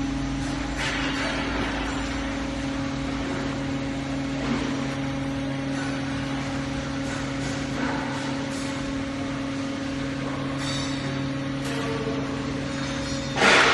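Hydraulic press machinery running with a steady hum, the sound of a 50-ton cold press's hydraulic power unit, with a few faint knocks and a short loud burst of noise near the end.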